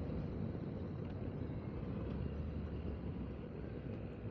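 Steady motorcycle riding noise: engine and wind rumble picked up by a rider's clip-on wireless microphone while under way.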